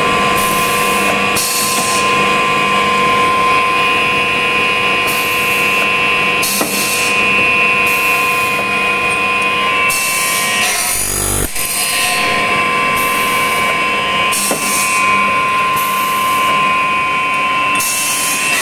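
Automatic aluminium profile cutting machine running: its saw blade spins with a steady whine, and a louder, harsher noise comes in every few seconds as it cuts through aluminium profile. There are a couple of sharp knocks, once a little after the middle.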